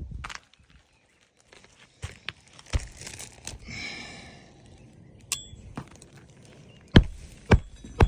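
Hand work on asphalt roof shingles: a few sharp knocks of a tool on the roof, a short metallic click, and about four seconds in a brief rasping scrape.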